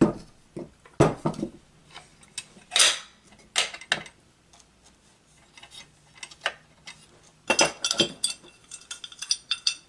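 Metal clinks and knocks as electric-motor parts are handled on a wooden workbench, with the long through-bolts being slid into the motor housing. The clinks come scattered, with a quieter pause in the middle and a quick cluster near the end.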